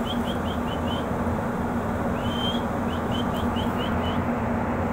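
Steady low hum of a ship's machinery with a wash of wind and sea noise on deck. Over it, a repeating high call: a rising whistle followed by a quick run of five or six short chirps, heard twice.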